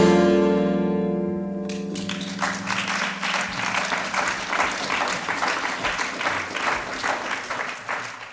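The last plucked-string chord of the piece ringing out and fading away, then audience applause starting about two seconds in and dying down near the end.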